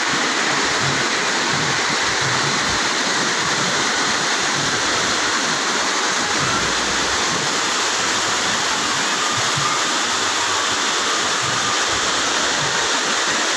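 Waterfall: falling water making a steady, dense rush with no breaks.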